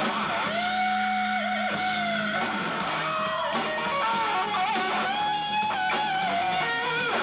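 Live hard rock band playing: an electric guitar lead holds long notes, bending up into them and wavering, over the full band.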